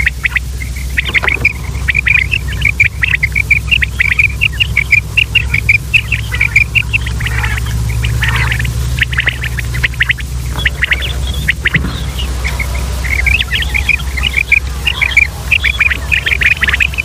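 Common quail calling: quick runs of short, high chirping notes, packed close and overlapping, thinning out for a few seconds after the middle, over a steady low hum.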